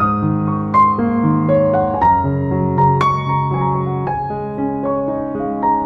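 Slow, gentle piano music: single notes struck every half second or so over held low chords.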